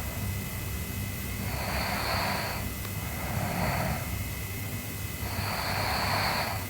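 A sleeping girl snoring: slow, rhythmic noisy breaths about every two seconds, three in all, over a low steady rasp.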